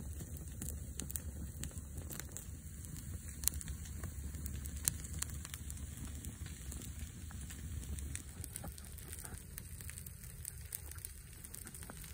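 Resinous log burning in an open fire, the flames crackling with scattered pops, two sharper ones in the first half, over a low steady rumble.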